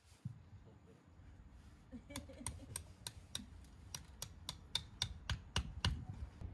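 A ticking sound effect of sharp, evenly spaced clicks, about three a second, starting about two seconds in and running for about four seconds over low outdoor background noise.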